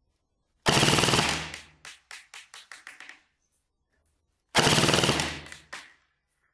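Airsoft electric gun (AEG) on a 9.9 V LiFe battery firing two full-auto bursts at about 18 rounds per second. The first starts about half a second in and the second a little after four and a half seconds. Each is loud for about a second and then tails off.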